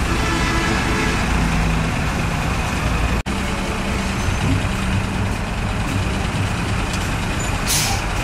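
Heavy diesel vehicles, buses and trucks, running at idle in a stalled traffic queue: a steady low engine rumble over a haze of traffic noise. A short hiss near the end, like an air-brake release.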